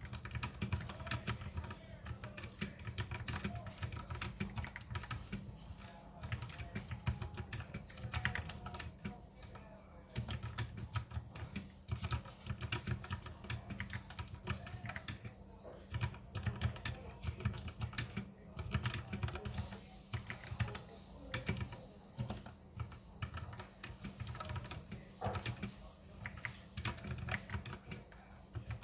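Typing on a Redragon K630 60% mechanical keyboard with Outemu brown switches: rapid, uneven runs of key clicks broken by short pauses, at a slow, halting pace.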